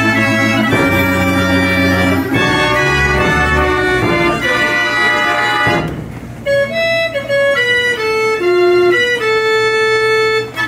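Dutch street organ playing a tune from folded cardboard book music, its pipes sounding full chords over a steady bass. About halfway through the bass and accompaniment drop away briefly, and a lighter melody line of held, stepping notes carries on alone.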